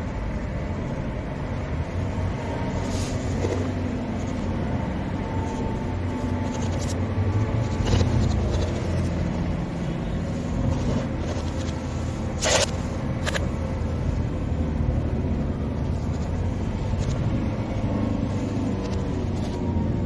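A car driving at a steady speed: continuous low engine and tyre rumble, with a few brief clicks, the loudest about twelve and a half seconds in.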